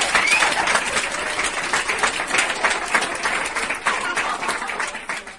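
Applause: many hands clapping in a dense, steady patter that thins out near the end.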